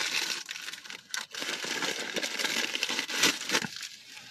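Packaging wrap crinkling and tearing as it is pulled open by hand, with a few sharper rips and rustles along the way.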